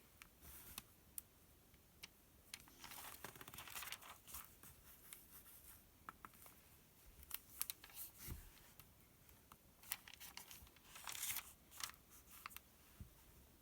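Paper sales circular being handled and its pages turned, with soft rustling and crinkling and scattered light clicks and taps on the paper.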